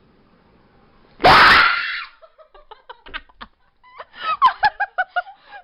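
A girl screams in fright about a second in, one loud scream lasting under a second, as the prank scare lands. A few sharp clicks follow, then giggling laughter.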